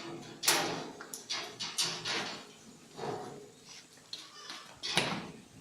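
Goats moving about in a pen: irregular knocks and scuffles, several sharp ones in a few seconds, with animal noises among them.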